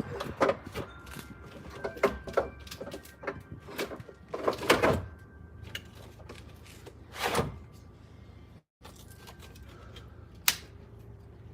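A run of irregular clicks, taps and knocks, as of hand work on a car with tools and parts, over a faint steady hum. The sound drops out completely for a moment about two-thirds of the way through.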